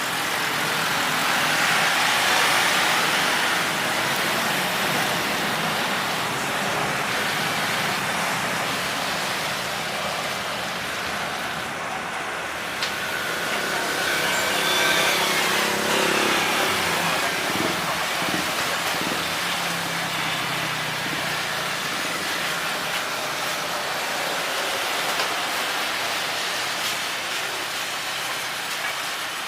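Steady outdoor roar of engine and traffic noise that swells twice, with a faint falling whine about halfway through.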